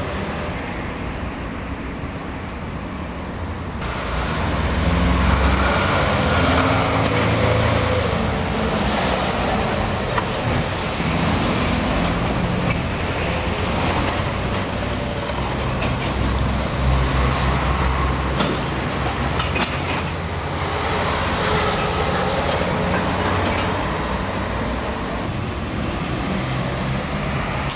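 Busy city street traffic led by heavy diesel lorries running and pulling away, with car engines and tyre noise mixed in. The sound jumps louder about four seconds in and stays loud.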